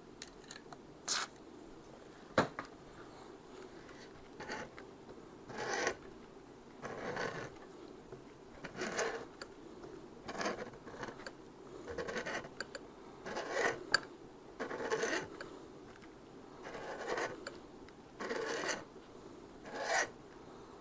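Half-inch tap cutting threads into a chainsaw's aluminium housing, turned by hand in a slow series of rasping, scraping strokes about every one and a half seconds. A single sharp click comes near the start.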